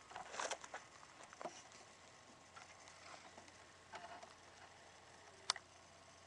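Faint rustling and light handling clicks, with one short, sharp click about five and a half seconds in.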